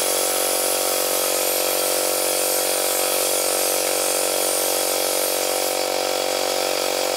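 Electric air pump running at a steady, unchanging drone while inflating an inflatable pool float through a coiled hose.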